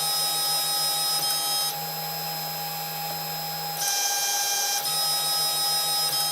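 Stepper motors of a Protomaker Black Sprint 3D printer driving the Z axis, a steady whine that changes its tone pattern three times as the motion changes.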